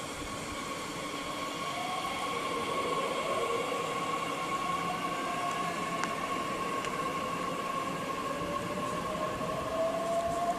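DB Class 442 Talent 2 electric multiple unit pulling out of the platform, its electric drive giving a steady high whine with fainter tones that dip and then climb in pitch as it gathers speed. A single sharp click about six seconds in.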